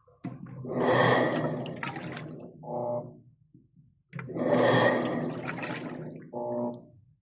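Whirlpool washing machine agitating a tub of water: twice, a surge of churning, splashing water with the motor's hum, each followed by a short low hum. The machine will not spin and makes this odd noise, which the owner suspects may come from the motor coupler.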